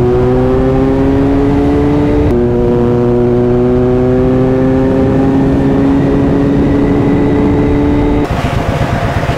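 Kawasaki Z900's inline-four engine accelerating under load: its pitch climbs steadily, drops at an upshift about two seconds in, then climbs again through the next gear for about six seconds until the throttle is closed near the end, under a steady rush of wind.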